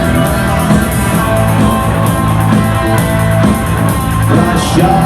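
Rock band playing an instrumental passage between vocal lines, with guitar and drums over a steady bass.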